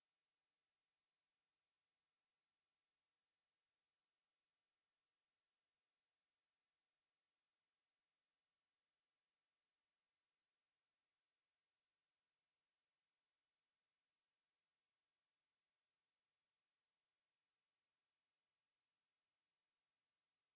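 A single high-pitched 9328 Hz sine-wave test tone, held perfectly steady, as used for speaker testing and for shaking water and dust out of a speaker.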